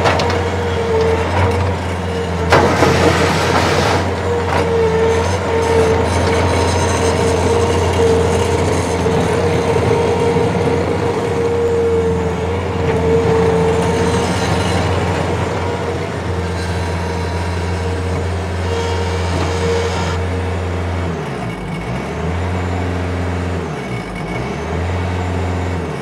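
Bobcat T450 compact track loader's 61 hp 2.4 L four-cylinder turbo diesel running steadily as the machine drives on its rubber tracks and works its bucket, with a wavering whine over the engine note. The engine note dips twice near the end.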